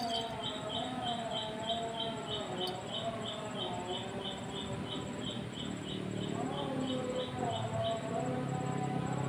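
Insect, likely a cricket, chirping in an even rhythm of about three short high chirps a second, stopping about eight seconds in.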